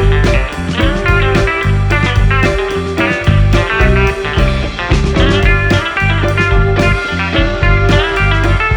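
Background music: electric guitar melody over a steady beat.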